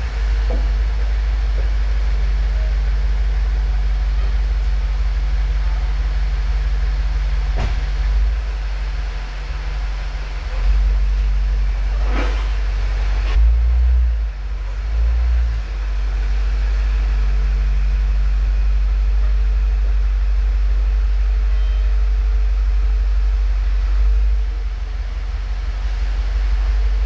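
BMW M8 Competition's twin-turbo V8 running at low speed as the car is manoeuvred back and forth into a parking spot, with brief throttle swells about ten, thirteen and fifteen seconds in. A sharp click is heard about eight seconds in.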